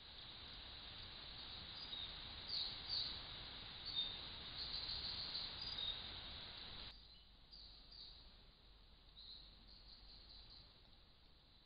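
Wild birds giving short, high chirps and calls over the steady hiss of a trail camera's microphone. The background hiss drops abruptly about seven seconds in, and a few fainter chirps follow.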